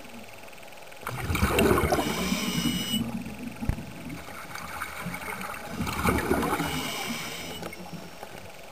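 Underwater gurgling and bubbling heard through the camera in two bouts, about a second in and again around six seconds in, each lasting one to two seconds, over a steady low hiss.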